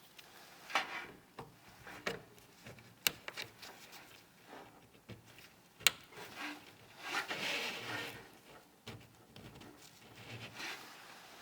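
Hands handling computer parts during a PC build: scattered sharp clicks and taps, with a longer stretch of rubbing and scraping about seven to eight and a half seconds in.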